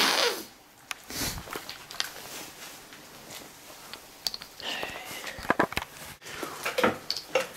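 Footsteps crunching and shifting over broken plaster and wooden debris, a run of irregular cracks and crunches that gets busier in the second half, with a brief squeak about five seconds in. A short loud rush of noise close to the microphone comes right at the start.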